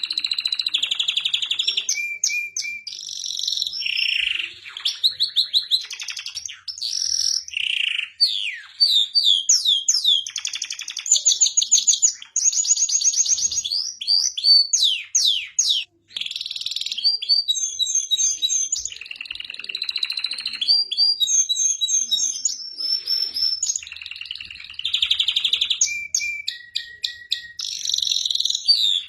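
Domestic canary singing a long, continuous song of rapid trills and rolls, with quick rising and falling whistles between them, and a brief pause about halfway through.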